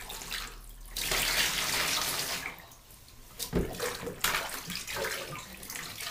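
Bath water being scooped up in a plastic cup and poured back into a shallow baby bath: a steady pouring stream for about a second and a half, then a few sharp splashes and sloshing as the cup is dipped again.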